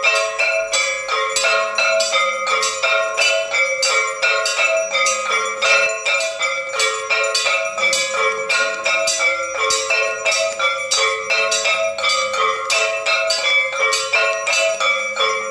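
Background music with a bright, bell-like melody repeating over a steady quick beat of about four strokes a second.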